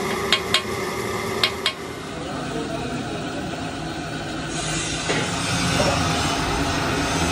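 Hammer tapping a small metal plug into a cast-iron tractor engine block: three sharp metallic strikes in the first second and a half. Then steady workshop background noise.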